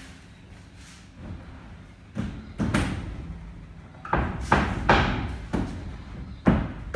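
Irregular heavy knocks and thuds on chipboard mezzanine floor sheets as they are worked into place, about eight in all, mostly in the second half, each with a short echo.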